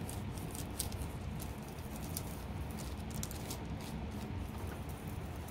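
Fingers pressing and smoothing a thin sheet of air-dry clay on wax paper: irregular light crackles and ticks of the paper, over a low steady rumble.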